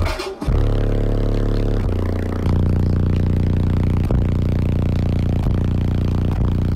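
A car audio subwoofer wall of two 18-inch subwoofers playing a song's deep bass notes, each held for a second or more and changing pitch a few times, with short breaks between them. The bass is heard from inside the vehicle, with a buzzing rattle over it.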